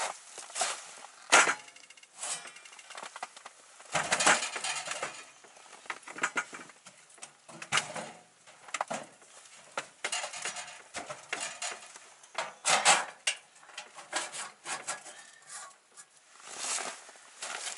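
Irregular clatter of metal clinks and knocks as a small sheet-metal wood stove is tended by hand, with a few louder knocks among lighter clinks.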